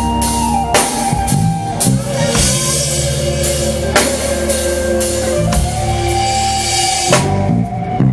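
Music with a drum kit and long held instrumental notes, the drums striking now and then rather than in a steady pattern.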